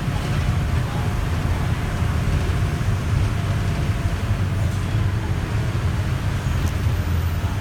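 Diesel engine of a Mercedes-Benz OF-1722M city bus running steadily, with a deep, even sound that does not rev up or down.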